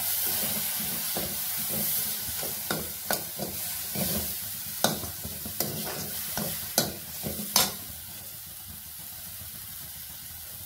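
Metal slotted spatula scraping and clacking against a metal kadai as it stirs a lightly sizzling tempering of mustard seeds, dal, dried red chillies and curry leaves. The spatula knocks come in an irregular run for about eight seconds, then stop, leaving only a soft sizzle.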